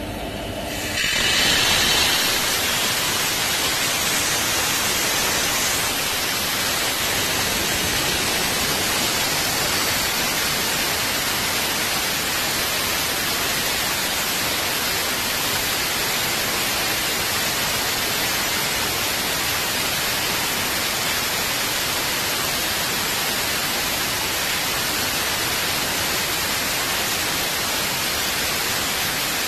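Compressed air blasting out of an electric locomotive's main reservoir drain valve: a loud, steady hiss that starts about a second in and keeps going.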